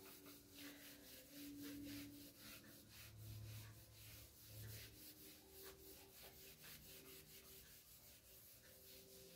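Whiteboard eraser wiping a whiteboard clean: faint, quick back-and-forth rubbing strokes, several a second.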